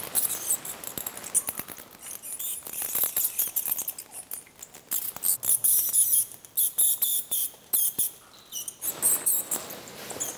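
A cluster of roosting bats squeaking and chittering: many short, high, sharp squeaks and clicks in quick, irregular succession.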